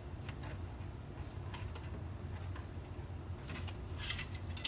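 Faint clicks and taps of hands working the plastic plug and housing of an Aprilaire 400 humidifier, a little cluster of them about four seconds in, over a steady low hum.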